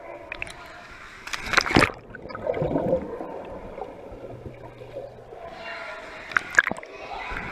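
Swimming-pool water splashing and gurgling as heard by a camera dipping in and out of the water. A burst of splashing comes about a second and a half in, then a muffled underwater stretch of bubbling, then sharp splashes again when the camera comes back to the surface near the end.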